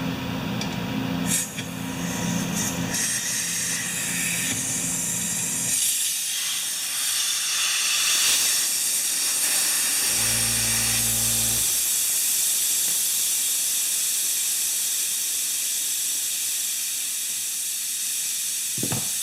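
Compressed air hissing steadily out of a DeWalt 4-gallon air compressor's tank as it is bled down through a valve held open with pliers, easing slightly toward the end.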